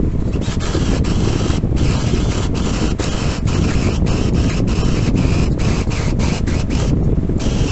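Cordless drill boring a large bit into plywood, the cutting noise repeatedly breaking off for an instant as the bit bites and the trigger is eased, more often in the second half. A steady low rumble runs underneath.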